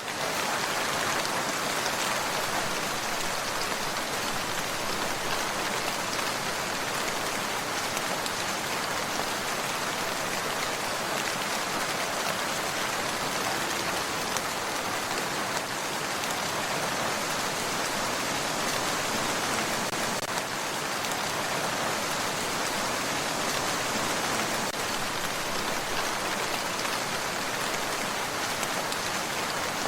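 Steady rainfall, a dense even hiss of drops falling on surfaces.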